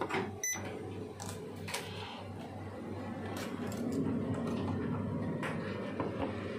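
Scattered sharp plastic clicks and knocks from the projector's housing and the ballast board being handled, over a steady low hum; a low rumble grows louder about halfway through.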